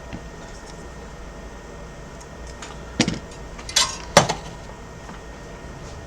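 Small metal hand tools clinking on a workbench: three sharp clicks about three to four seconds in, the middle one a short scrape, over a steady fan-like whoosh.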